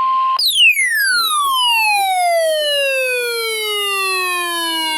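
A steady alert tone near 1 kHz cuts off half a second in. It gives way to a loud, buzzy electronic siren tone that slides steadily down in pitch for nearly five seconds, from high to low, and a second downward slide starts near the end.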